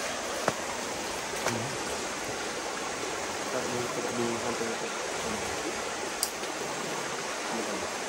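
Steady rush of flowing water from a forest stream, with a couple of faint clicks.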